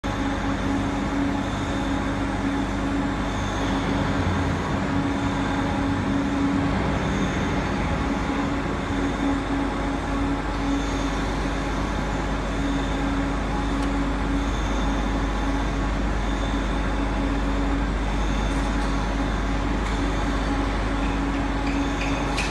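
Vertical spindle sump pump and its electric drive motor running steadily: an even mechanical rush with a steady hum.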